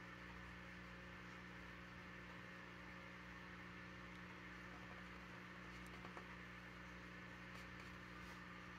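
Near silence: a faint steady hum and hiss, with a few faint ticks in the second half.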